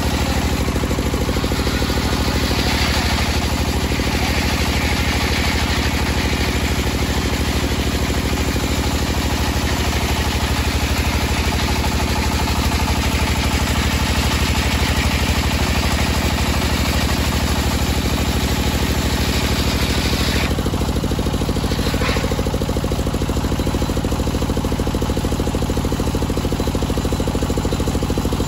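A homemade table circular saw ripping a teak beam lengthwise, a steady cutting noise over the machine's constant low hum. About twenty seconds in, the cut ends: the cutting noise drops away sharply and the blade runs free.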